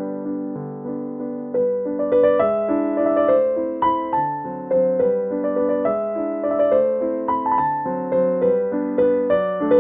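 Background piano music: a gentle melody of struck notes that fade after each strike, growing busier about two seconds in.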